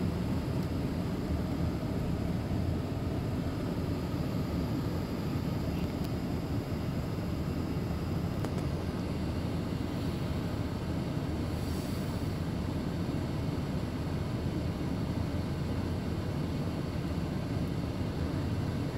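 Steady low engine rumble and cabin noise heard from inside a vehicle idling and creeping forward in queuing traffic.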